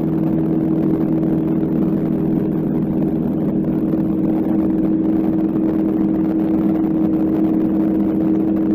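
Light aircraft's propeller engine droning steadily at climb power, heard inside the cabin, with a constant low hum and no change in pitch.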